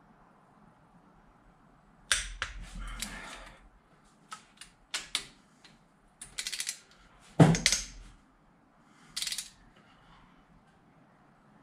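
Click-type torque wrench on the cylinder head bolts of a Datsun L16 engine: a series of sharp clicks and short ratcheting runs a second or two apart, the loudest about seven and a half seconds in. The clicks are the wrench releasing at its set torque of 61 ft-lb.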